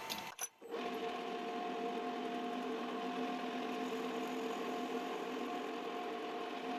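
Metal lathe running with a steady hum and several constant tones, starting after a brief gap about half a second in.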